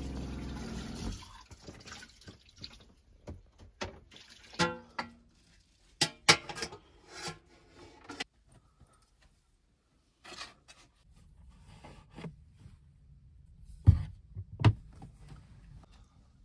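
Dishes, a metal pan and a bowl clattering and clinking as they are handled at a small sink, after about a second of steady rushing water at the start. Two heavier knocks come near the end.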